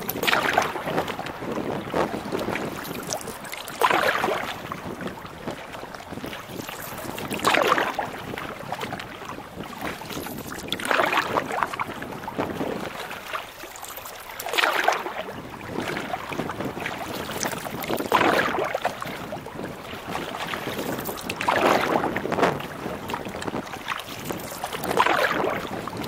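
Canoe paddle strokes splashing through the water, one swish about every three and a half seconds. Underneath runs a steady rush of wind and choppy water.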